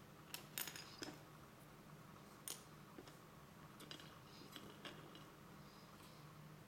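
Small plastic model-kit parts being picked up and set down on a cutting mat: faint, scattered light clicks and taps, a cluster of them about half a second in.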